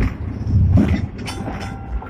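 Hong Kong double-decker electric tram running on its rails, heard from inside the car: a steady low rumble with several short knocks and clacks from the wheels and body.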